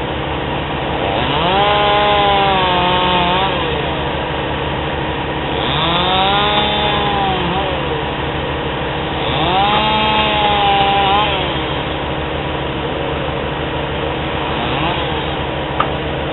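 Stihl MS210 two-stroke chainsaw idling between three bursts of full throttle, each rising in pitch, holding a few seconds and dropping back to idle, as it cuts through small firewood; a weaker fourth rev comes near the end.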